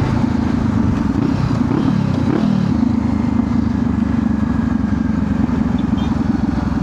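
Honda CBR500R's parallel-twin engine running under way, with road and wind noise; the engine note drops about two seconds in, then holds steady.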